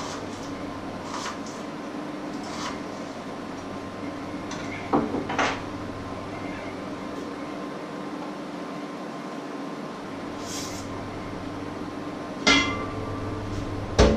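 Kitchen work over a steady low hum: a few light knocks at a wooden cutting board, two sharp clicks about five seconds in, then near the end a loud clank with a short ring and a rattle as a pot lid is handled on the stove.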